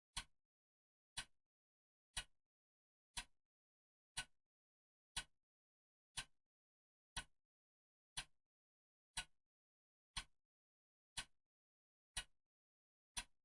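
Clock ticking steadily, one sharp tick per second, with dead silence between the ticks.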